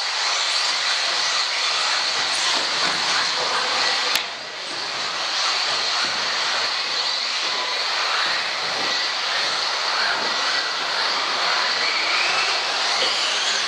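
Several electric RC off-road buggies racing: a steady high-pitched motor whine mixed with tyre noise. A single sharp click comes about four seconds in.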